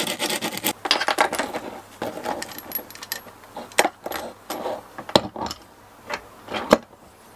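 Metal fittings and braided hoses of a pull-out faucet scraping and clinking against the edge of a drilled hole in a countertop as they are fed through, followed by the faucet's chrome base slid down over them. A dense run of scraping and rattling for about the first two seconds, then a few separate sharp clicks.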